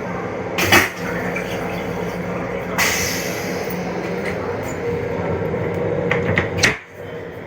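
Metro-North M7 electric railcar running: a steady rumble and hum with a few sharp knocks and rattles, and the noise drops sharply about seven seconds in.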